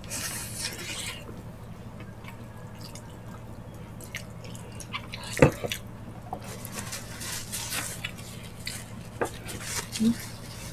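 Wet chewing, smacking and sucking mouth sounds of people eating gelatinous stewed ox feet (balbacua) by hand, with scattered small clicks and one sharp click about halfway through.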